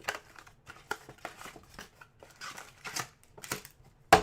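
Trading cards and their packs being handled: irregular soft rustles, slides and clicks as cards are gone through, with one sharp click near the end.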